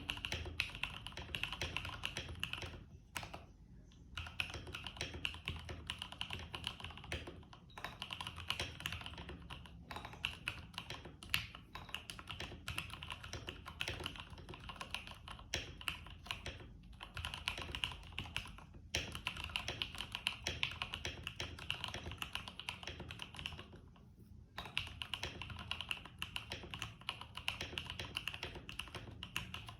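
Typing on an IK75 keyboard resting on a desk mat: a fast, steady stream of key clicks with a couple of brief pauses.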